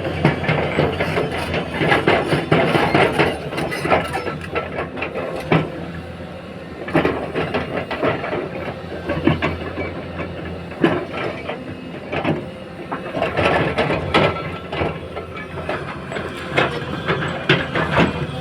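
LiuGong 922 hydraulic excavator's diesel engine running steadily while working, with frequent irregular knocks, rattles and scrapes from the machine at work.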